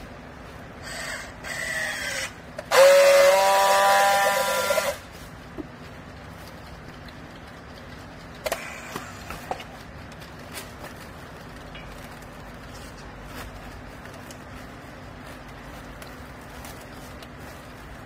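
Handheld battery strapping tool sealing a plastic strap around a bale. First a short motor whir with a changing pitch, then a loud, steady buzzing tone for about two seconds as the tool friction-welds the strap. A few light clicks follow several seconds later, over a low steady hum.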